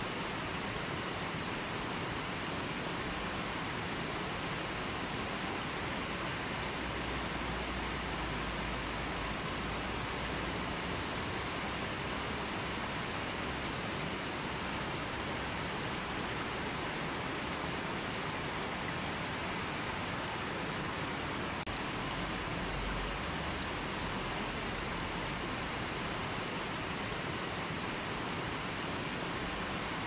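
A shallow rocky river rushing over stones: a steady, even wash of running water.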